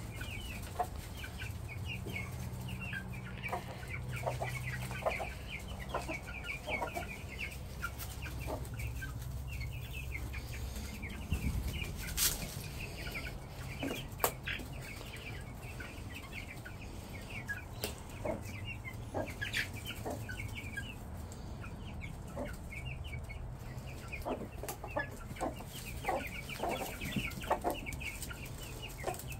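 A flock of Vorwerk chickens, young birds and adults, clucking and cheeping, with short high-pitched calls repeating throughout. A few sharp clicks stand out partway through.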